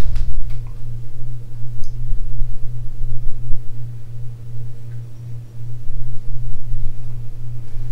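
A steady low hum with a rumble beneath it, pulsing slightly, with a few faint light clicks.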